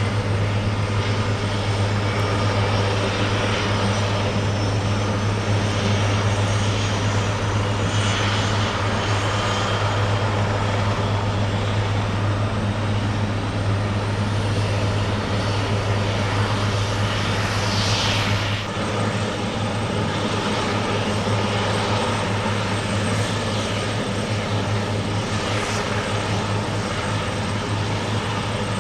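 Eurocopter AS332L1 Super Puma helicopter running, a steady loud rotor drone with a thin high turbine whine over it. The low drone eases slightly about two-thirds of the way through.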